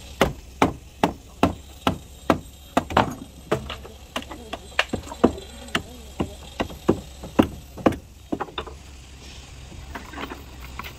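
A steady run of sharp blows struck on wood, about two to three a second, stopping about eight seconds in.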